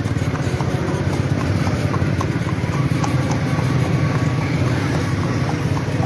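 A horse's hooves clip-clopping in a steady rhythm on a paved road as it pulls a two-wheeled cart at speed, over the steady running of a motorbike engine alongside.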